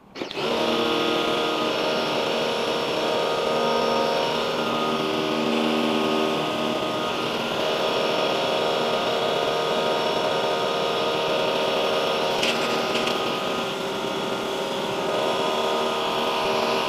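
Pressure washer starting up and running steadily, its motor and pump humming under the hiss of the water jet striking the aluminium fins of an air-conditioner evaporator coil as it is rinsed clean.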